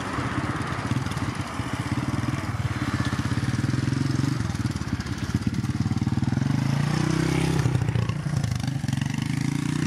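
The twin Pratt & Whitney PW127 turboprop engines and propellers of an ATR 72-600 run at takeoff power as the airliner climbs away, giving a steady low propeller drone. Its pitch drifts slightly lower about seven seconds in.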